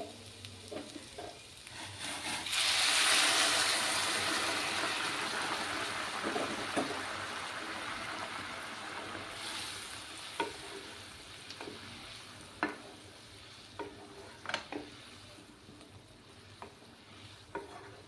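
Hot water poured into a hot wok of spice-fried taro: a sudden loud sizzle about two and a half seconds in that slowly dies down as the liquid bubbles. Later a wooden spatula stirs the curry, knocking against the pan several times.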